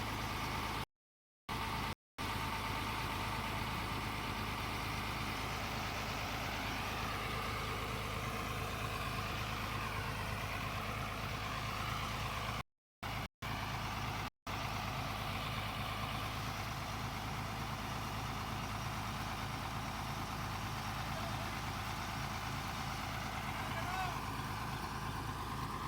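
Tata Hitachi 200 excavator's diesel engine running steadily while it digs. The sound cuts out to silence a few times, briefly about a second in and again around thirteen to fourteen seconds in.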